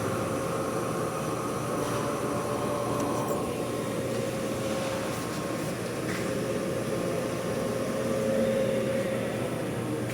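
Brake disc lathe running steadily, skimming a front brake rotor, with a constant motor hum and a held mid-pitched tone over a noisy cutting hiss.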